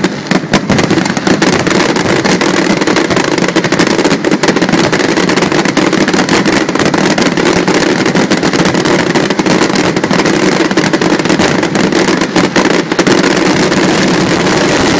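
Aerial fireworks display in a dense barrage: shell bursts follow one another so quickly that they run together into a continuous loud din, with sharper cracks throughout.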